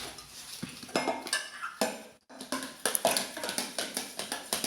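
A small child hitting a drum kit in an irregular rhythm, uneven clattering and metallic strikes with a brief pause about two seconds in.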